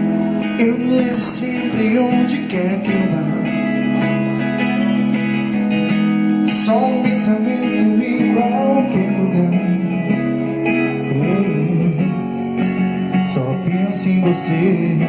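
A band playing a song's instrumental intro: guitar to the fore over long held chords, with a melody line moving above them.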